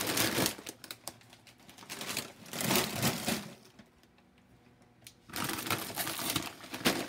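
Plastic chip bags crinkling as they are picked up and moved, in three bursts of crackling with a quiet spell about four seconds in.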